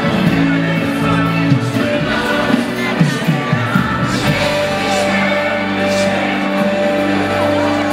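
Music with singing, and a large crowd shouting and whooping along.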